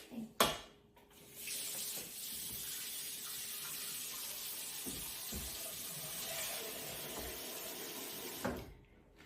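Kitchen tap running steadily into a sink for about seven seconds, then turned off, with a short knock just before the water starts.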